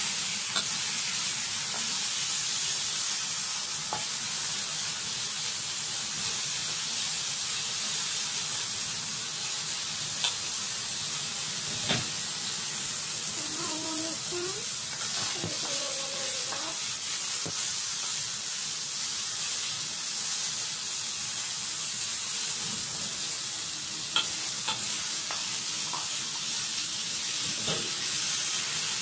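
Bottle gourd strips frying in a nonstick pan: a steady sizzle, with a few sharp clicks as the vegetables are stirred.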